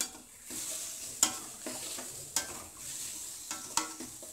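Onions and tomatoes sizzling in oil in a stainless steel kadai while a steel spoon stirs them, scraping and clinking sharply against the pan about three times over a steady frying hiss.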